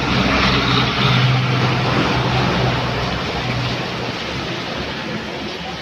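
A cargo truck passing on a wet road: its engine's low, steady hum is strongest for the first few seconds, then fades as it moves away. A continuous hiss of rain and tyres on wet asphalt runs underneath.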